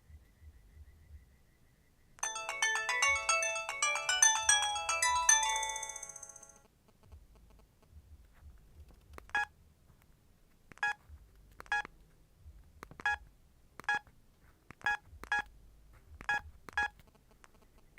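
LG KP105 mobile phone playing a polyphonic ringtone through its speaker: a quick melody of many short notes that lasts about four seconds and fades out. Later come about nine short, separate beeps at uneven intervals, like keypad tones as the phone's buttons are pressed.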